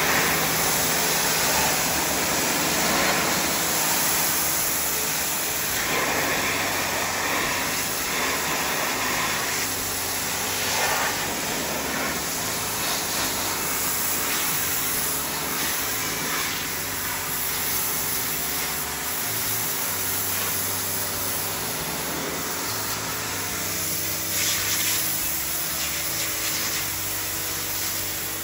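Pressure washer jet spraying water onto a whole fish and a wet wooden board, blasting off scales and slime: a steady hiss of spray over a low hum.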